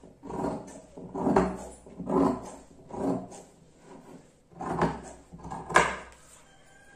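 Fabric scissors cutting through several layers of folded fabric. There are six long snips about a second apart, with a short pause after the fourth.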